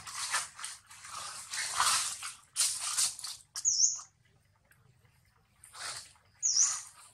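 Baby long-tailed macaque crying in fright: a run of short harsh squeals with two brief high chirps among them, falling quiet for about two seconds past the middle before squealing again.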